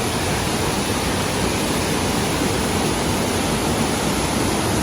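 A steady, loud rushing noise, even across all pitches, that starts and stops abruptly.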